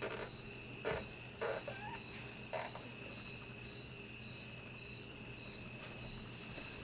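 Quiet rustling and a few soft bumps of bedding as two children shift about on a bed, over a steady high-pitched chirring in the background.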